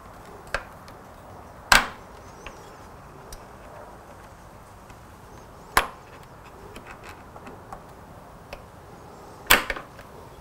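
Three loud, sharp knocks about four seconds apart, with a softer knock near the start and a few faint clicks between: hand tools and small parts being handled and set down while intake stacks are screwed onto a motorcycle's throttle bodies.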